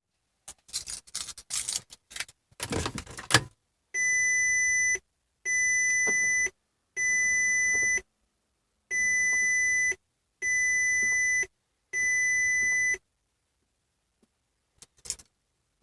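A rattle of clicks and jingles, then six steady, high electronic beeps, each about a second long, in two sets of three. A faint click follows near the end.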